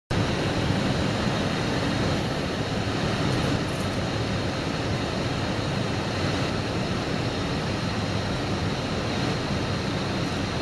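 Steady rushing noise of airflow and engines inside an aircraft cockpit in flight, with a faint high whine over it and no bangs.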